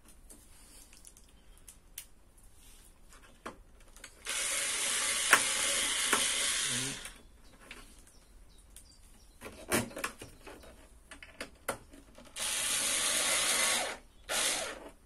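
Small cordless screwdriver driving screws into sheet metal, running in two spells: one of about three seconds, starting about four seconds in, and a shorter one near the end. Between them come a few knocks from parts being handled.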